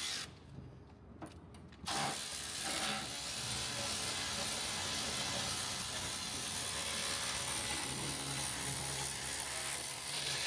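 Cordless electric ratchet running steadily, spinning a clamp bolt on an intercooler boot. It starts about two seconds in.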